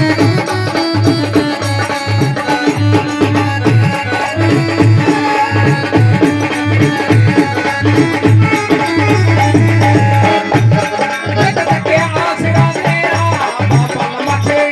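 Instrumental interlude of a Punjabi devotional bhajan: folk music with a steady, fast beat on tabla-like drums and rattles under a melody line.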